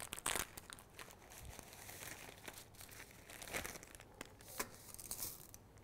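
Dry pasta being tipped into a pot of boiling water: soft crinkling with scattered light clicks.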